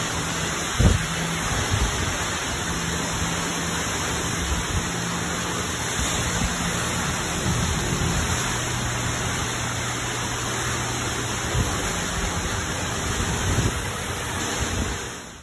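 Heavy rain falling in a steady downpour, driven by strong wind. A few low thumps of wind gusts hit the microphone now and then.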